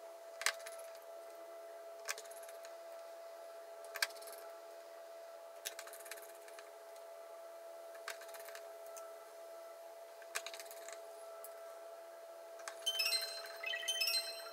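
Small sharp metallic clicks of a precision screwdriver and tiny screws as the back plate is screwed onto a smartphone's frame, one every second or two over a faint steady hum. Near the end, light marimba-like music comes in.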